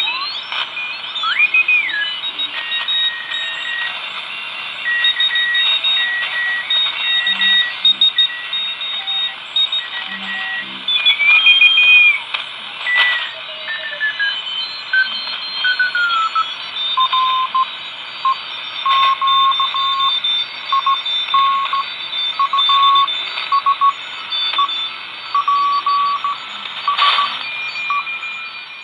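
'Sawdust' regenerative receiver picking up Morse code (CW) on the 40-meter ham band over steady hiss. Several keyed beeps come through at different pitches, and whistles slide in pitch early on as it is tuned. From about the middle onward, one lower-pitched Morse signal keys steadily.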